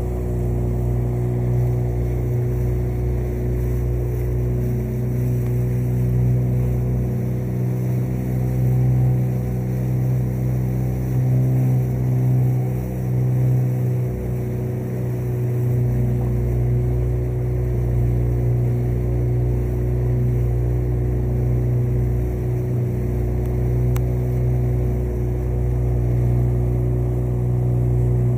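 Motorboat engine running steadily under way, a constant low drone.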